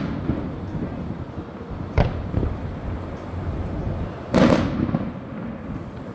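Fireworks going off: a bang right at the start, a sharp bang about two seconds in, and a longer, louder burst about four seconds in that trails off.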